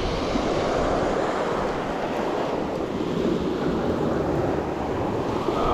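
Surf washing steadily onto the beach, a continuous rush of waves, with wind rumbling on the microphone.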